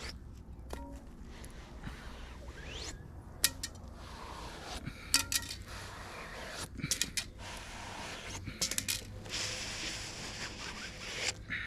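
Small metal objects being handled: a series of sharp metallic clicks and clinks at irregular intervals, with a short rustling stretch near the end.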